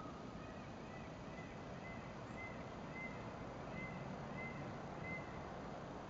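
Steady outdoor background noise with a low hum. Faint, short, high-pitched chirps repeat about twice a second through most of it.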